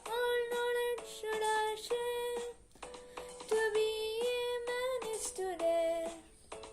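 A young singer's voice singing the closing phrases of a school anthem, holding long notes with short breaths between phrases.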